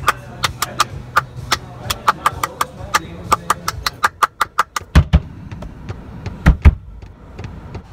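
Hands clapping a quick, uneven rhythm inside a car's cabin, the claps coming faster toward the middle. In the second half come a few deeper, heavier thumps.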